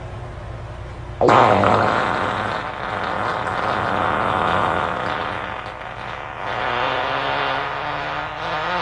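A long fart noise that breaks in suddenly about a second in, loudest at its start, and runs on for about seven seconds, wavering in loudness. A low hum sits under the first second.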